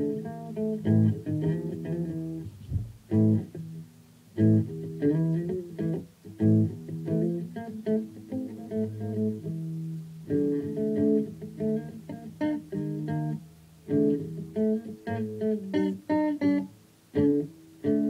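Electric guitar played solo and freestyle: phrases of quickly picked single notes and short chords, broken by brief pauses.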